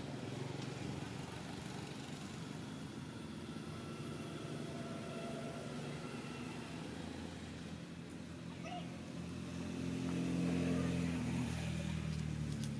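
A steady low engine hum that grows louder about ten seconds in.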